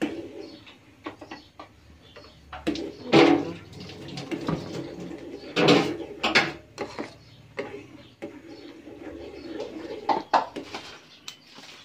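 A metal spoon stirring in a small metal saucepan, with irregular clinks and scrapes against the pan, a few louder knocks among them.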